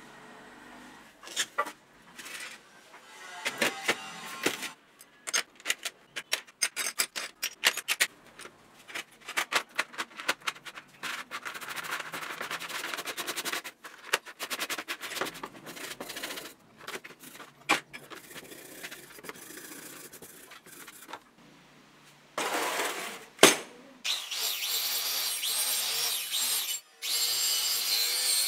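Rapid scratchy strokes of a brush scrubbing rusty bicycle parts in a plastic tray, then, from about 24 seconds in, an angle grinder running steadily against steel handlebars, grinding off rust.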